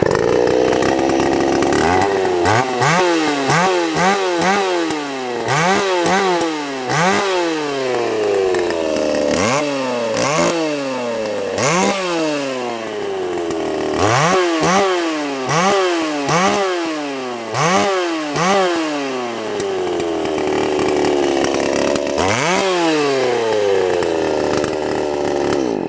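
Vintage Homelite 300 Classic two-stroke chainsaw engine running loud and bare, with no bar or chain fitted, through a muffler with its baffles removed. It idles and is blipped up to high revs again and again, each rev rising sharply and falling back to idle.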